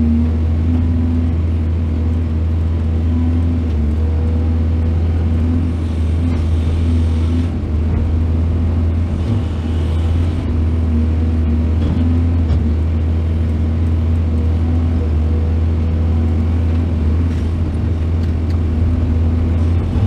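Heavy diesel engine of earthmoving machinery running steadily, with a low, even hum.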